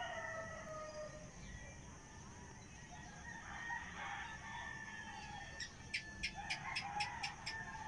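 Fowl calling in the background, one crow right at the start and another about three and a half seconds in. Near the end comes a fast run of about eight sharp clicks, about four a second.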